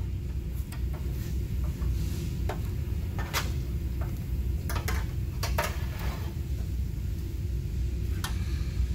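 Scattered sharp metallic clicks and clinks as the leftover seam strip of an old door skin is rolled up with pliers and peeled off a steel door shell, over a steady low rumble.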